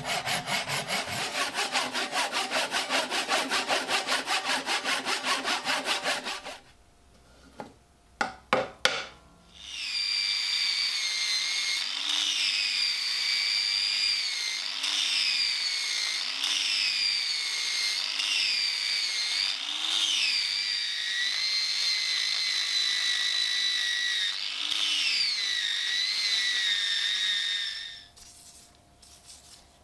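A hand saw cuts through a round wooden handle in quick, even strokes. It stops, and after a pause with a few knocks an angle grinder with a sanding disc starts, whining steadily while it sands the wooden handle, its pitch sagging every second or so as it is pressed into the wood.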